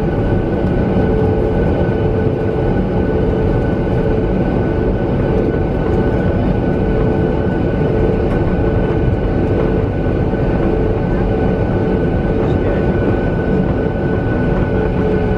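Cabin noise of a Boeing 737 on the ground, its CFM56 turbofan engines running at idle thrust with a steady hum and a constant whine. The engine pitch does not rise, so this is taxiing or holding rather than the take-off roll.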